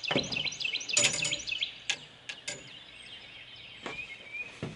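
Small birds chirping in quick, rapid runs, busiest over the first second and a half, then a few scattered calls. Several sharp clicks and knocks, the loudest about a second in.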